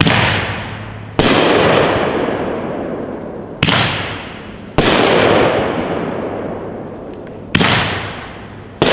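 Epic Fireworks King KaBoom 19-shot 500-gram consumer firework cake firing its shots one at a time. There are six sharp bangs, spaced one to three seconds apart, and each trails off in a long, slowly fading rumble.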